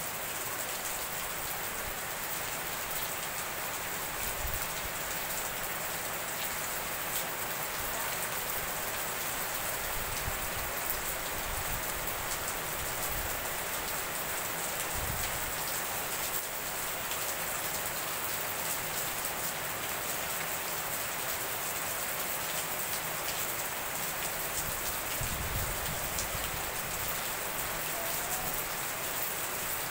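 Heavy tropical rain pouring down steadily, splashing on wet paving and puddles, with water streaming off a roof edge.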